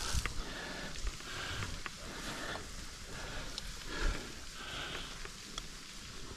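A rock climber breathing hard in short, repeated breaths while making the crux move, with a few light clicks.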